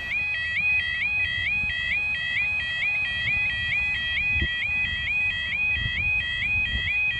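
Level crossing warning alarm sounding while the barriers are down: a two-tone warbling 'yodel' that repeats about three times a second, with a low rumble beneath.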